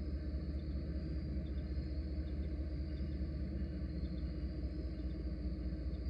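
Diesel locomotive rumbling steadily as it comes through a long tunnel, a low drone with no change in level. Crickets chirp in a thin high band over it.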